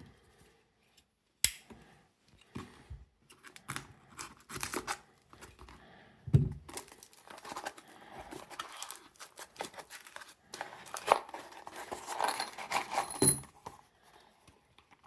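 A postal parcel being opened by hand: packaging tearing and crinkling in irregular bursts. There is a sharp click about a second and a half in and a duller knock around six seconds in.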